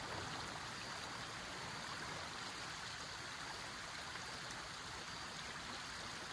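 River water running steadily over rocks, a constant rushing noise.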